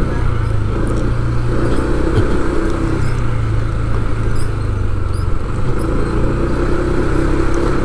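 A motor vehicle's engine running steadily with road and traffic noise, a constant low hum.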